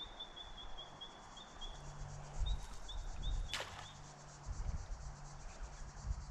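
A bird calling in two runs of short, high notes, evenly spaced at about five a second, over faint insect chirring. A few low thumps and one sharp click sound about three and a half seconds in.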